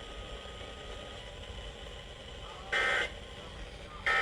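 Emergency Alert System end-of-message code bursts after a weather warning: two short, loud, buzzy bursts of warbling data tone, one a little more than halfway through and one near the end, over a low radio hiss.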